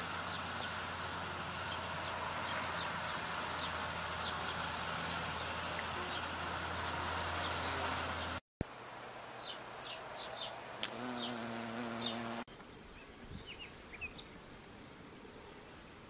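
Bees buzzing at flowers, with birds chirping in the background. A steady low buzz fills the first half; after an abrupt change the sound is quieter, a clearer pitched buzz is heard for a second or two, and near the end mostly faint bird chirps remain.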